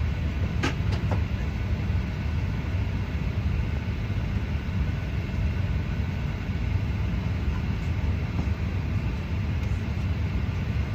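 Steady low rumble and hiss inside a Boeing 737 cabin on the ground before takeoff, with a single click just under a second in.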